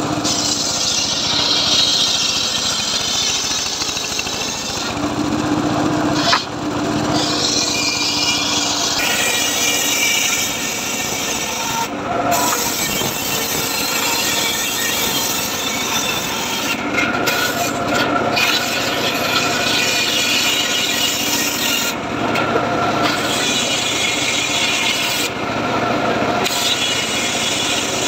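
Homemade bench circular saw ripping old teak into thin battens: a steady rasping cut through the wood. There are several short lulls where the upper part of the noise drops away.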